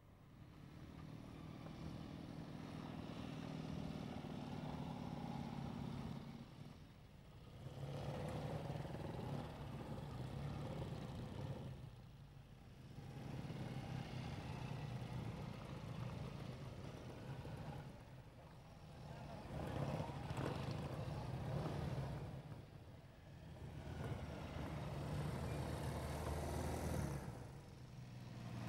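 Classic BSA motorcycles ridden past one after another, each engine note swelling up and falling away, with short dips about every four to six seconds between passes.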